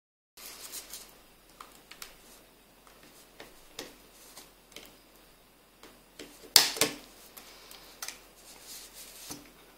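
Scattered small plastic clicks and light handling of a Nokia Lumia 520 smartphone's housing and clips as it is pried open, with one sharp, louder click about two-thirds of the way through.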